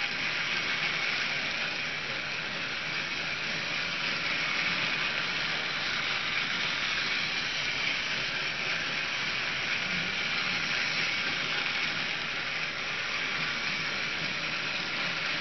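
TrackMaster Rebecca and an older TrackMaster Thomas, battery-powered toy trains, running together on plastic track. Their small geared electric motors give a steady high whir.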